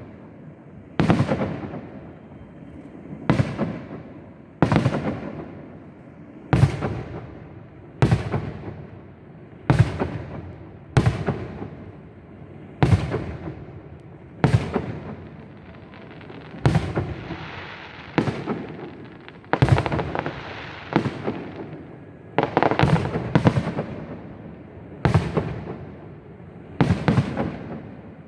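Fireworks display: aerial shells bursting one after another, a sharp bang every one to two seconds, each trailing off in an echo. Around the middle, a hissing crackle fills the gaps between bangs. Near the end a few come in quick pairs.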